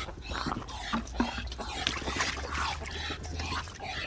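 Water being poured into a container, an irregular rushing splash with a few clicks.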